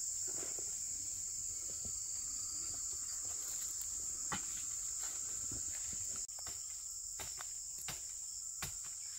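Steady high-pitched insect chorus, with a few sharp knocks and scrapes in the second half.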